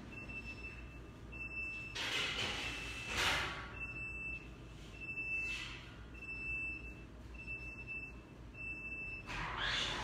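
Oven timer beeping a single high tone about once a second, signalling that the bake time is up; the beeping stops about nine seconds in. Two louder noisy rushes, handling sounds, come about two and three seconds in, and another near the end.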